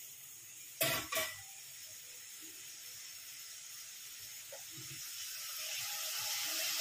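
Chopped onion, capsicum and tomato frying in oil in a steel kadai, a steady sizzling hiss that grows louder over the last couple of seconds. Two short knocks about a second in.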